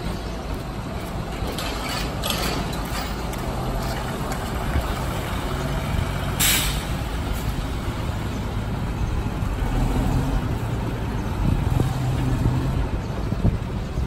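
Diesel engine of a flatbed truck with a UNIC knuckle-boom crane running as the truck drives slowly past, with a short, sharp air-brake hiss about six and a half seconds in.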